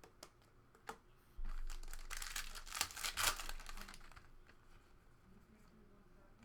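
A trading-card pack wrapper being torn open and crinkled for about two and a half seconds, starting about a second and a half in, after a few light clicks of cards being handled.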